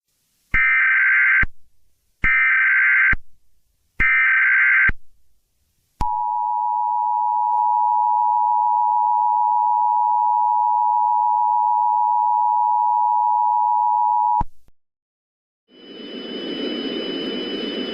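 Emergency Alert System broadcast alert: three data-header bursts of about a second each, then the two-tone attention signal held steady for about eight seconds and cut off sharply. A hiss comes in near the end.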